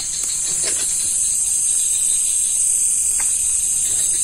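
Steady high-pitched chorus of crickets and other night insects, with a couple of faint soft knocks.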